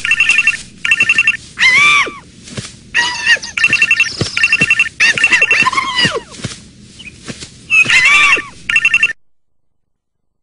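Telephone ringing in short, rapidly trilling electronic bursts, again and again, between high squeaky gliding vocal cries of the kind the ZooZoo characters make. All sound cuts off suddenly about nine seconds in.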